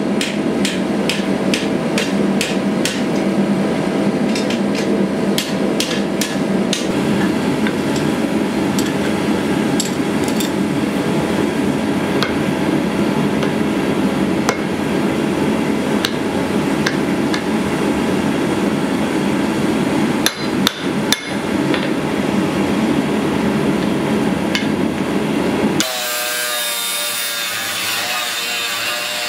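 Hand hammer striking red-hot steel on an anvil, about three blows a second at first and then more spaced out, over a steady rushing noise. Near the end it cuts abruptly to an angle grinder's disc cutting through steel, its whine wavering under load.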